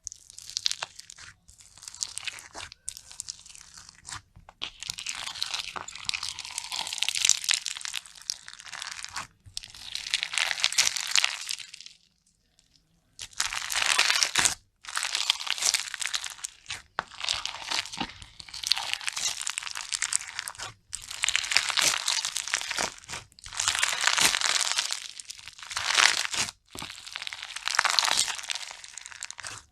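Slime being squeezed and pressed by hand, crunching and crackling in repeated bursts of a second or a few seconds each, with a brief pause about twelve seconds in.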